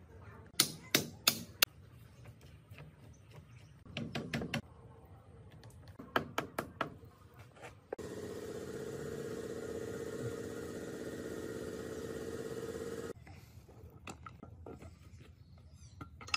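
Four sharp metal taps about a second in as a bearing is driven onto a manual gearbox shaft with a length of pipe, then scattered clinks and knocks of steel gearbox parts being fitted. A steady hum runs for about five seconds in the middle and stops suddenly.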